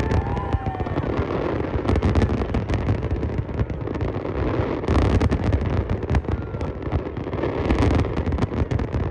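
Aerial fireworks display going off: a dense run of rapid bangs and crackling over a deep rumble of booms, with the heaviest clusters of cracks about two, five and eight seconds in.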